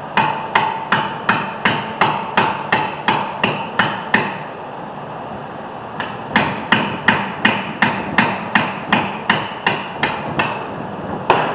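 Hammer striking the end of a screwdriver seated in a seized Phillips rotor retaining screw, metal on metal, to shock the corroded screw loose. Two runs of quick, even blows, about three a second, with a short pause between them and one last blow near the end.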